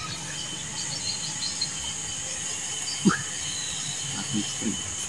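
Insects droning, a steady high-pitched sound with a fainter steady tone below it, and a few faint brief sounds about three seconds in and again a little later.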